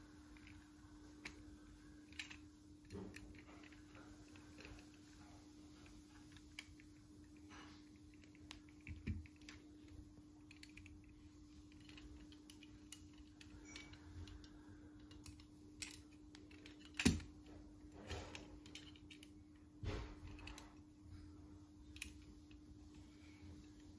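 Small irregular metal clicks and taps as a small screwdriver works the brass screws on a brass lamp frame's plate and the frame is handled, with a faint steady hum underneath.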